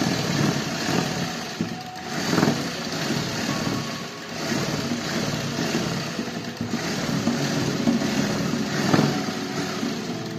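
Kulwant sewing machine running steadily, stitching a lace strip onto suit fabric.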